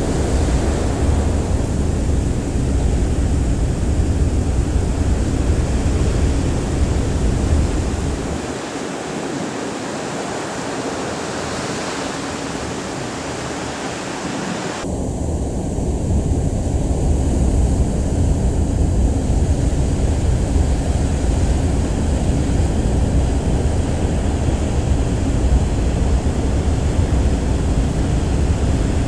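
Wind rumbling on the microphone over a steady rush of sea water, aboard a moving ferry. The low wind rumble drops away for several seconds in the middle, leaving a softer, even rush, then returns.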